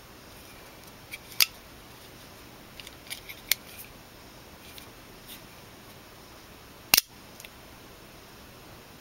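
Smith & Wesson double-action automatic knife clicking and snapping as its blade is fired and worked. There is a sharp snap about a second and a half in, a run of small metallic clicks around three to four seconds, and the loudest snap about seven seconds in.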